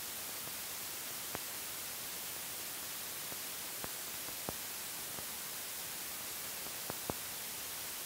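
Steady hiss of an old film soundtrack, with a few faint, scattered clicks and pops.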